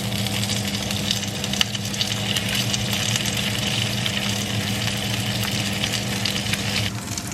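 Tocino frying in a pan, sizzling and crackling steadily, over a constant low hum from a motor.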